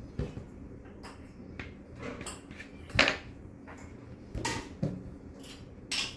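Kitchen clatter: dishes and utensils knocking and clinking against each other several times, the sharpest knock about three seconds in.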